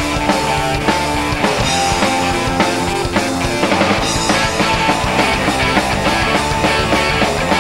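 Rock band playing live: electric guitars over a steady drum beat, an instrumental passage with no singing.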